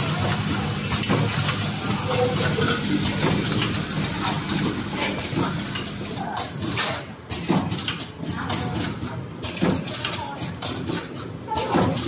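Closed-end plastic zipper slider mounting machine running: rapid clicks and clatter from its mechanism over a steady low hum that fades about halfway through.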